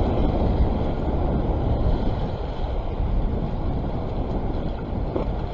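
Steady low wind rumble on the microphone mixed with the wash of a choppy sea.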